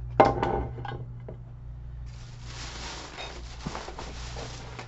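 A sharp knock about a quarter second in, then a thin plastic shopping bag rustling and crinkling as it is lifted out of a cardboard box.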